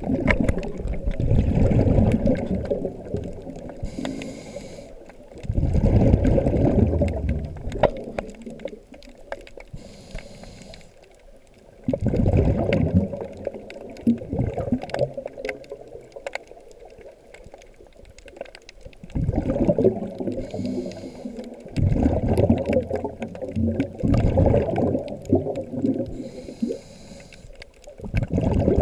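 Scuba diver breathing through a regulator underwater, heard through the GoPro's housing: every few seconds a rumbling rush of exhaled bubbles lasting two to three seconds, with a short faint hiss of the inhale between them.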